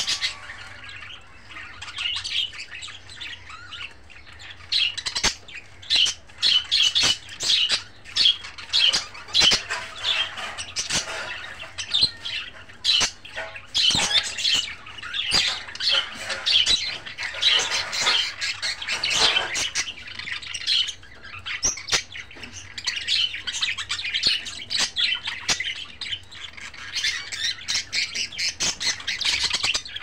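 Budgerigars chattering: quick high chirps and warbles mixed with short harsh squawks, in busy runs with brief lulls.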